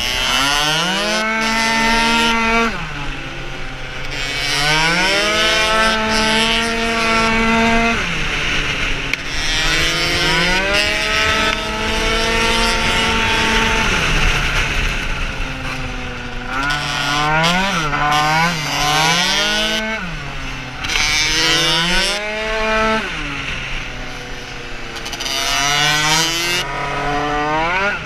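Tuned two-stroke racing scooter engine heard from on board, revving up hard about six times, each time its pitch climbing quickly, then holding high and level, then falling back off. A few quick blips up and down come in the middle.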